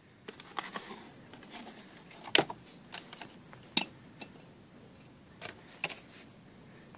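Cardboard box being handled and a new spin-on oil filter taken out of it and set down on asphalt: a string of sharp clicks, taps and rustles, the loudest about two and a half seconds in.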